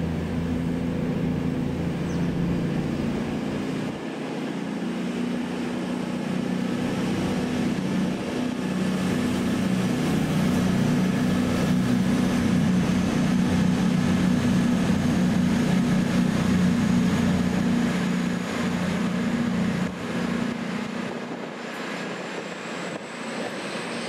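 Diesel train engine running with a steady low drone, growing louder through the middle and easing off about twenty seconds in. A faint rising high whine comes in near the end.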